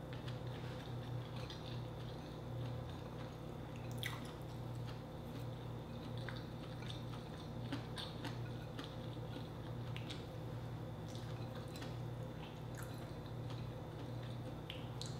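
Close-miked eating sounds: soft chewing, lip smacks and finger licking, with scattered small clicks as rice is picked up by hand, over a steady low hum.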